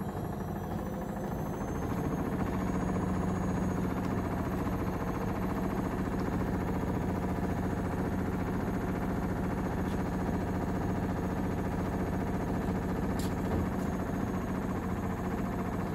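Gorenje UseLogic front-loading washing machine on a spin cycle. The motor whine rises in pitch and the sound grows louder over the first couple of seconds as the drum speeds up, then it settles into a steady spinning hum.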